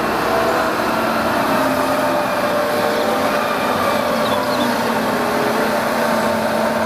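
Concrete mixer truck driving along a street, its diesel engine running steadily amid traffic noise.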